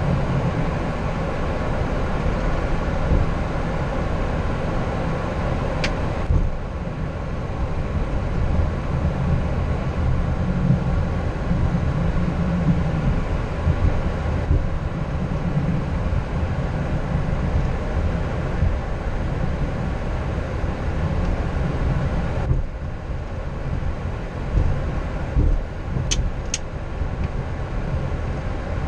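Steady low rumble and hum inside a Boeing 737-800's cockpit as the jet taxis, with small bumps every few seconds and a couple of faint clicks.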